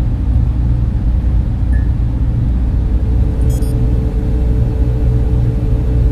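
Sci-fi 'cyber library' ambience drone: a steady deep rumble with a low hum, joined about halfway through by a second steady tone, with a brief burst of high electronic chirps just after.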